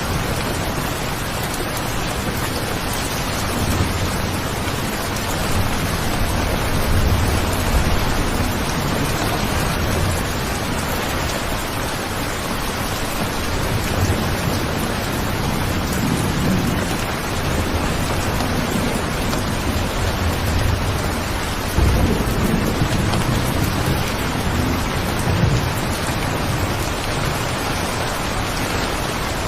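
Steady, heavy rain falling, with low rolling rumbles of thunder coming and going. The strongest rumble starts sharply about 22 seconds in.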